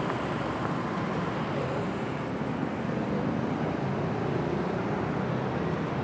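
Steady city street traffic noise, an even rumble of passing vehicles with no distinct events.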